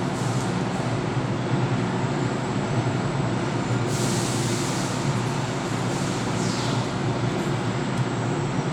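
Steady low hum with an even rushing noise over it, slightly brighter for about a second midway.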